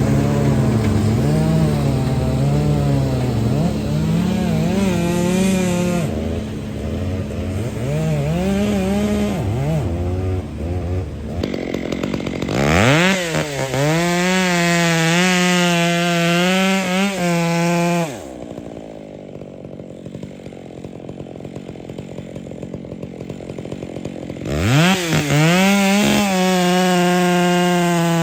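Two-stroke chainsaw cutting wood: for the first ten seconds or so the engine pitch sags and recovers under load, then it revs up to a high steady full throttle. It drops back to a quiet idle for several seconds and revs up to full throttle again near the end.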